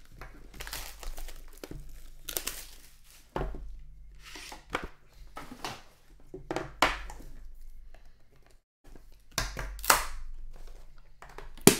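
Plastic wrap crinkling and tearing as a sealed trading-card box is unwrapped and handled, in a run of separate rustles, with one sharp knock near the end.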